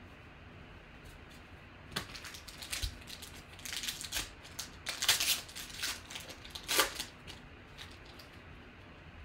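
Foil trading-card pack wrapper being torn open and crinkled: a run of sharp crackles and rips starting about two seconds in, loudest around the middle and again near seven seconds, then dying away.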